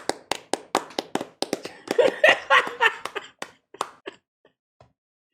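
One person clapping their hands in a quick, steady run of claps, loudest about two to three seconds in, then thinning to a few scattered claps and stopping after about four seconds. This is a single take recorded as one layer of a homemade crowd-applause sound effect.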